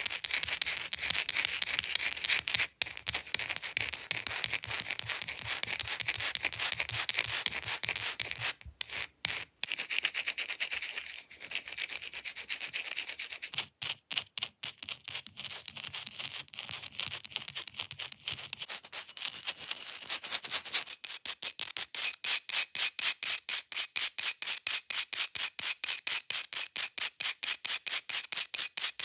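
Long fake nails scratching fast across an object's surface: dense, continuous scratching with a few short breaks, then quick, even strokes at about four a second for the last third.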